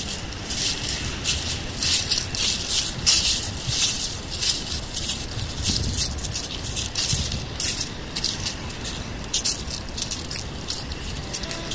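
Dry fallen leaves crunching and rustling underfoot, an uneven stream of crackles several times a second.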